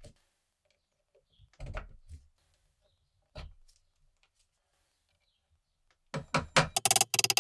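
Brass handle pins being set into the holes of a steel machete tang on a wooden bench: a few light knocks, then, starting about six seconds in, a quick run of sharp clicks with a ringing, metallic tone.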